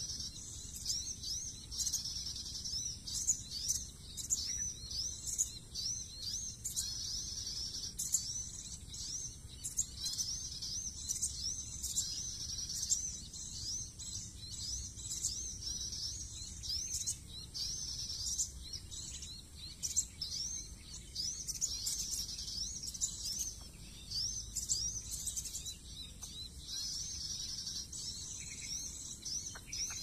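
Small birds chirping in a dense, continuous stream of quick, high, short notes, with sharp ticks mixed in.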